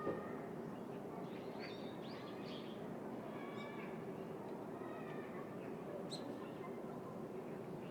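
City park ambience: small birds chirping and calling on and off over a steady low hum of distant city noise. A brief knock sounds right at the start.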